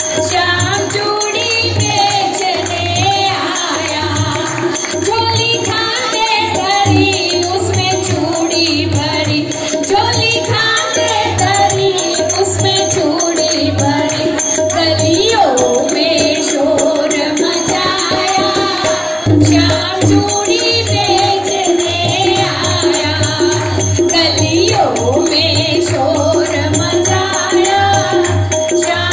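A woman singing a devotional bhajan into a microphone, with group hand-clapping and a drum keeping a steady beat in time.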